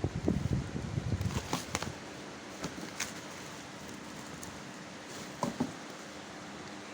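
A laptop being handled: rustling and rubbing for about two seconds, then a few scattered light clicks and taps.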